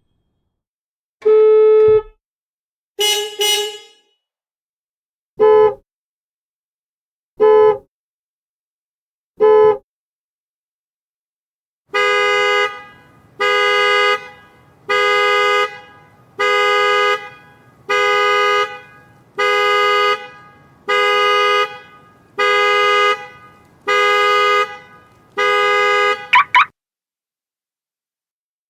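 Car horn sounding: a single honk, a broken double honk, three short toots a couple of seconds apart, then about ten even honks roughly a second and a half apart, the pulsing horn pattern of a car alarm going off, ending in a quick chirp.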